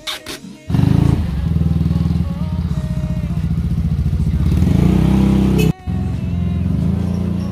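A small motor scooter's engine starts about a second in and runs loudly as the rider pulls away, with a brief break near the end.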